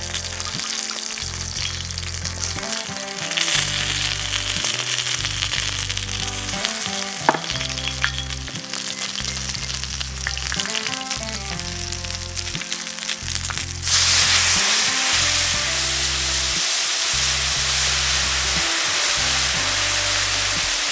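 Mutton tails sizzling in hot oil on a steel plough-disc pan over an open fire, with background music. About two-thirds of the way through, the sizzle jumps suddenly to a much louder, dense hiss as liquid goes into the hot pan and boils around the meat.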